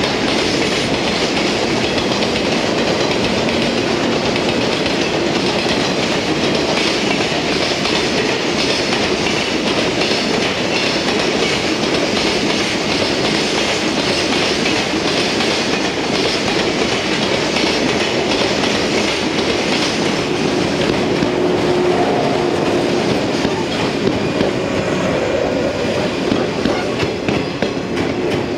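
Container freight train passing at close range, wheels clacking steadily over the rail joints. About two-thirds of the way through a faint steady hum joins in as a second train runs past on the next track.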